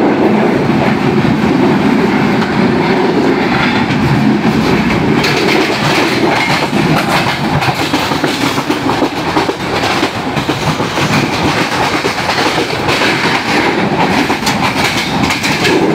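Passenger train running at speed, heard at an open carriage door: a steady loud rolling rumble of wheels on rail, with repeated clacks as the wheels pass over rail joints, more frequent in the second half.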